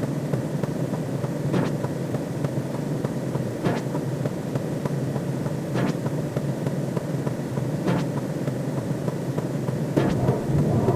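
Steady low synthesized sci-fi drone, with a short click about every two seconds.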